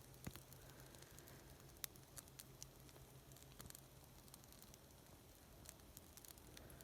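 Small campfire crackling faintly, with sparse sharp snaps and pops scattered through the few seconds.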